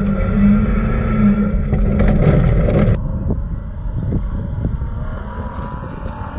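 Ford Escape engine running steadily, heard loud from inside the cabin; after a sudden cut about three seconds in it is heard from outside, more distant, as the SUV drives across a dirt track toward a jump, with a few light knocks.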